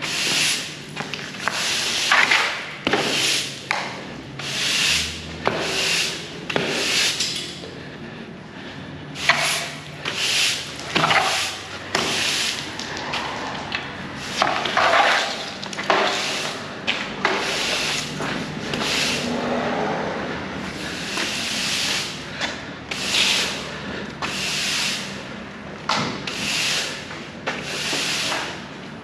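Push broom sweeping mud across a concrete wash-bay floor in repeated scratchy strokes, about one a second with a few short pauses.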